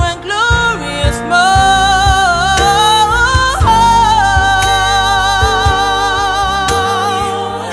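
Live gospel band music: a woman's voice holds a long, wavering note that slides up about three and a half seconds in. Under it play keyboard, bass, electric guitar and steady cajon beats.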